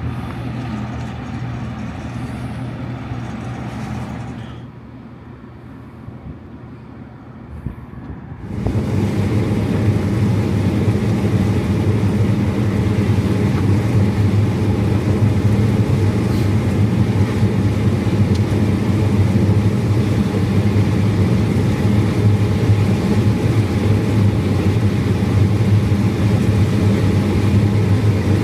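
Tractor engine running steadily. About eight seconds in it gets much louder and stays there, with a steady rushing noise on top.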